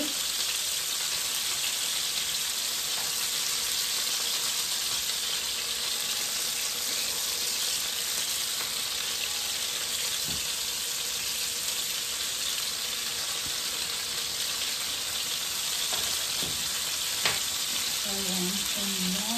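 Cod fillets and sliced red onion frying in oil in nonstick pans, a steady sizzle throughout. A few light clicks come through it, the sharpest near the end.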